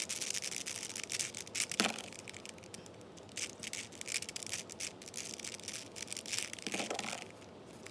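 Plastic 4x4 Rubik's cube being turned by hand: quick runs of clicking and clacking as its layers rotate. The runs come in three bursts with short pauses between them.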